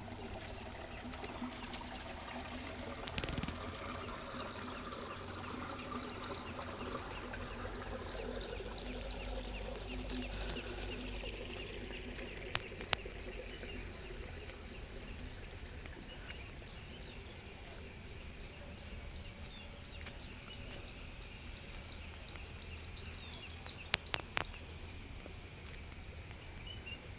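Outdoor nature ambience: a steady rush of flowing water, with insects droning high and small birds or insects chirping over it, and a few sharp clicks.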